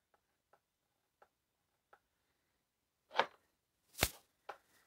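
Hand screwdriver driving a felling-dog screw into a chainsaw's plastic housing: faint clicks as the screw turns, then a couple of louder clicks and a sharp knock about four seconds in.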